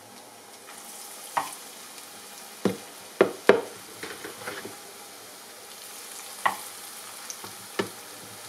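Hot oil sizzling steadily in a frying pan as balls of mashed potato and salted fish (makayabu) deep-fry, with a few sharp taps on top, the loudest pair a little over three seconds in.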